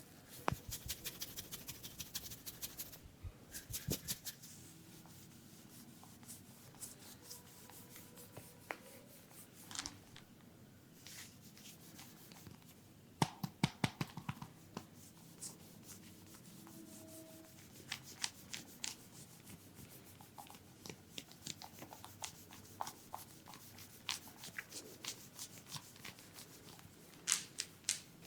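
Hands massaging a person's head: rubbing and scratching over the scalp and hair, with runs of quick, light taps and clicks.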